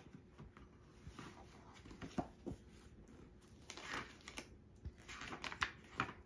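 A paperback picture book being handled on a floor mat: soft taps and clicks with a few brief paper rustles as its pages are touched and turned.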